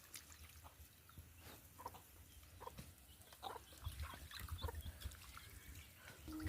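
Faint chickens clucking, with scattered short calls.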